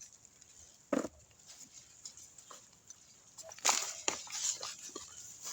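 Sweet potato vines being pulled up by hand, rustling and tearing out of the soil: one short burst about a second in, then a longer run of rustles and snaps a little past the middle.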